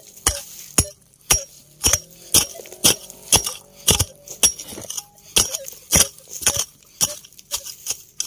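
A metal digging tool striking stony ground over and over, about two sharp clinking strikes a second, as a metal-detector target is dug out.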